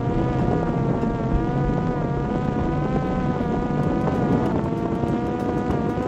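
Parrot Disco fixed-wing drone in flight: its electric motor and propeller hum a steady tone that wavers slightly in pitch, over the rumble of wind on the microphone.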